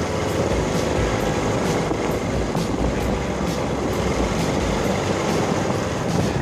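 Motorbike running along a road while being ridden, with wind buffeting the microphone in irregular low thumps.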